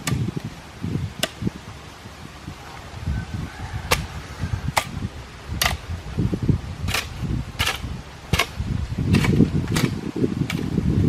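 Repeated sharp strikes of a tool, a few at first and then a steady run of about one every three-quarters of a second from about four seconds in, over a low, uneven rumble.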